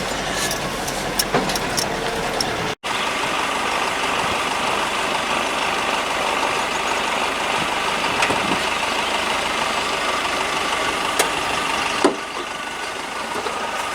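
Ute engine running as it drives along a rough farm track, a steady noise with scattered small clicks and knocks. The sound cuts out for an instant about three seconds in.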